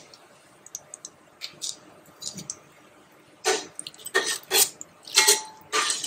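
Whole spices ticking lightly in hot oil, then a steel slotted spoon stirring in a stainless-steel pot: a run of loud scrapes and clinks of metal on metal, one ringing briefly.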